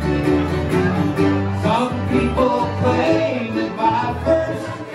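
Live acoustic bluegrass band playing an instrumental passage between vocal lines: upright bass pulsing under strummed acoustic guitar, mandolin, banjo and accordion, with a melody line bending through the middle.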